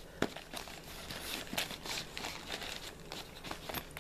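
Makeup palettes and lipsticks being handled and packed into a fabric makeup case with clear plastic pockets: irregular rustling with many small clicks and knocks.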